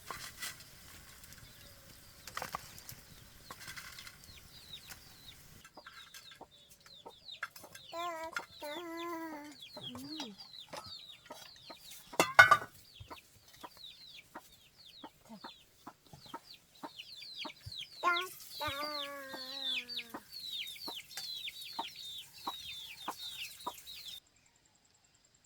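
Chickens calling: a fast run of short, high peeps, with two longer wavering calls about 8 and 18 seconds in, and a sharp knock near the middle. The sound cuts off suddenly near the end.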